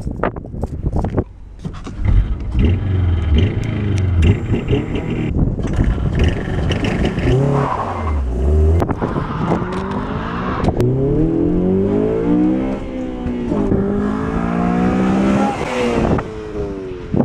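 Honda Civic Si with a Skunk2 Alpha header and Mugen cat-back exhaust accelerating hard past the listener. The engine note climbs in pitch, drops at an upshift about two-thirds of the way in, then climbs again before fading.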